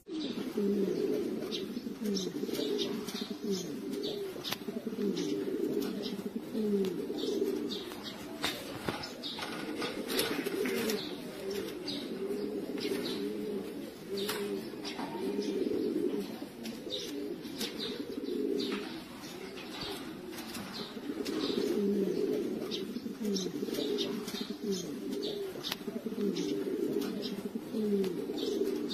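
Several domestic pigeons cooing continuously in a loft, their low gliding coos overlapping, with scattered short sharp clicks among them.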